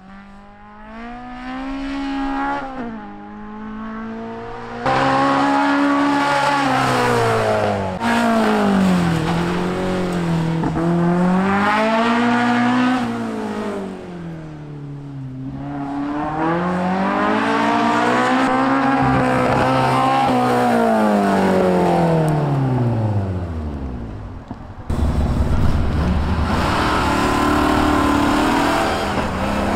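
Racing sedan's engine revving hard through a timed run, its pitch climbing under acceleration and dropping off as the driver lifts for corners, over and over. There are sudden jumps in loudness along the way, and near the end the sound becomes rougher and noisier.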